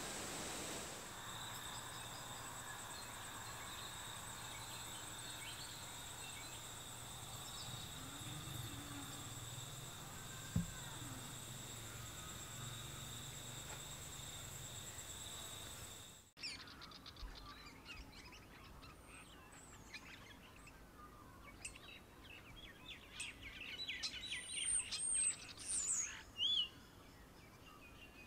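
A steady high-pitched buzz with a faint low hum and one click about ten seconds in. Partway through it cuts to birds chirping and calling outdoors, many quick calls, busiest and loudest near the end.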